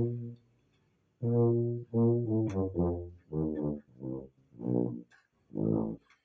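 Three-valve 3/4 B-flat Jahnke tuba played with a deep mouthpiece, sounding separate tongued notes of a scale in its low register. After a pause of about a second, about seven short notes follow, each with a brief gap.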